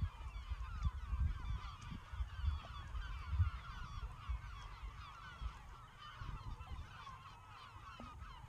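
A large flock of birds calling continuously, many short calls overlapping, with low rumbling gusts in the first few seconds.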